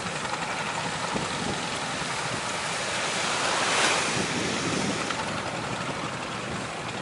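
Sea surf breaking and washing, with wind buffeting the microphone; one wave swells loudest about four seconds in.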